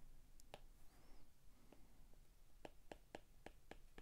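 Faint taps and clicks of a stylus on an iPad's glass screen while handwriting: a few scattered ticks, then a quicker run of about three a second in the second half.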